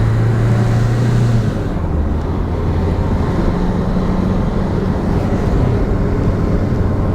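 Car engine and road noise while driving: a steady low engine hum that drops a little in pitch about a second and a half in.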